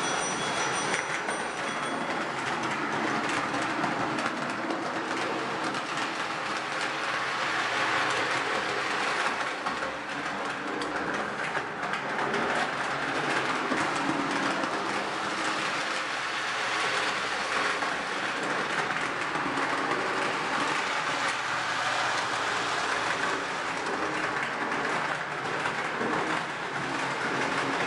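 Lionel O-gauge toy train running on the layout's track: a steady mechanical running noise with dense fine clicking.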